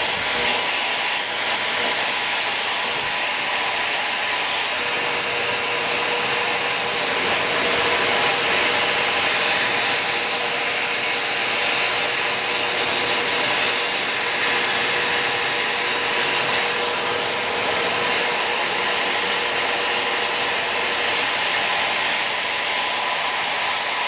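Shark vacuum cleaner's motor running steadily, a continuous rush of air with a high, steady whine over it.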